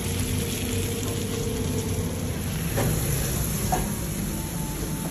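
Kebab wraps frying on a flat-top griddle with a steady sizzle. There are two short knocks about three and nearly four seconds in as a steel spatula presses the wraps.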